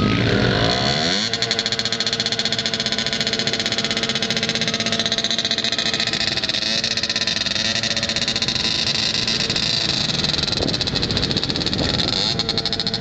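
Small sport quad (ATV) engine rising in pitch over the first second, then running steadily with a fast, even beat. It varies somewhat near the end.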